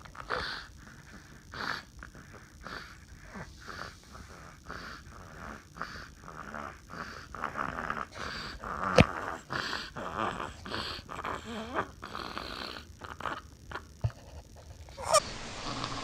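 A baby snoring, with short rasping breaths about once a second. A sharp click comes about nine seconds in and another sharp sound near the end.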